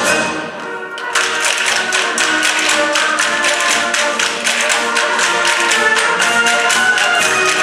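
Orchestral-style music with a steady tapping percussion part that comes in about a second in, at roughly four to five taps a second, in the manner of folk noise instruments played along with a recording.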